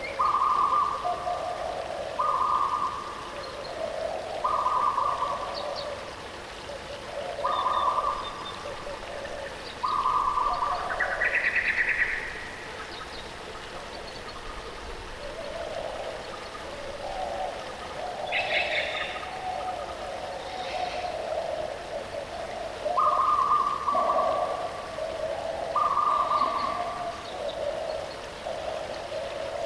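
Birds calling over running water: a repeated, steady-pitched call about every two seconds, alternating higher and lower notes, with a few higher chirps mixed in.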